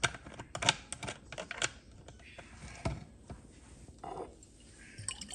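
Kitchen utensils and containers clicking and tapping while marinade ingredients are measured out: a quick run of sharp clicks in the first second or two, then a few scattered taps.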